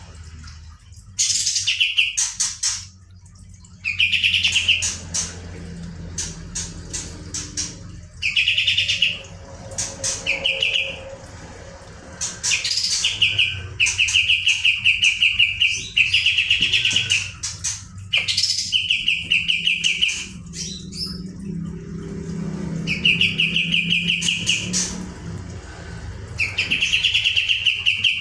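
White-shouldered triller (kapas tembak) in full song: bursts of high chirps, each running into a fast trill, repeated every couple of seconds.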